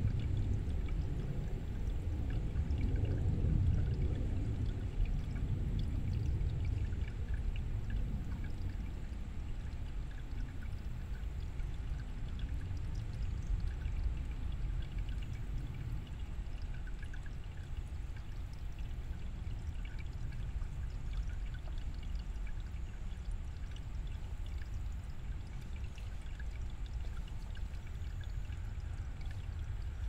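Shallow stream flowing over rocks: a steady low rush of running water with small bubbling splashes scattered through it, a little louder in the first few seconds.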